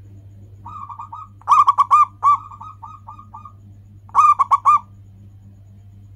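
Zebra dove (perkutut) cooing: a soft run of notes, then a loud rapid series of short arched coos trailing off into softer ones, and a second loud burst of coos about four seconds in. A steady low hum runs underneath.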